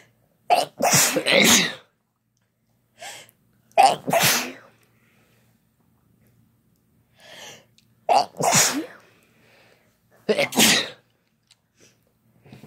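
Human sneezing: four loud sneezes in a row, spaced two to four seconds apart, some led by a short quick in-breath.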